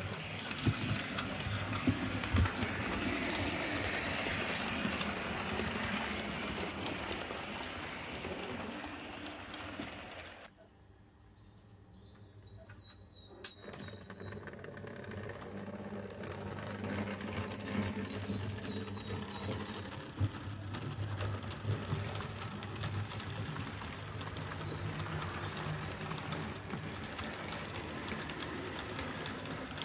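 Model railway trains running on the layout: a steady rumble of wheels on track and motor hum. It goes quieter for a few seconds about a third of the way in, then builds back up as a locomotive and coaches pass.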